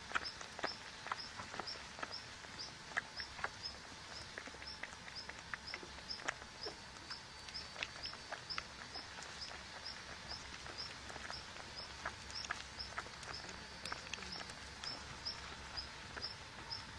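A small bird chirping over and over at an even pace, about two short high chirps a second, with scattered light clicks and rustles.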